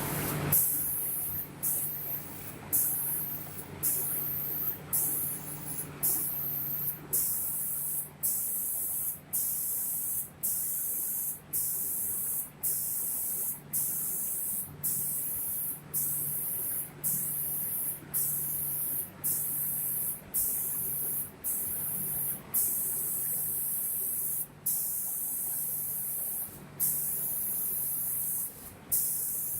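Automatic spray guns of an SPD2500C door spraying machine hissing in bursts about once a second, each broken off by a short gap as the guns switch off and on, over a steady low machine hum.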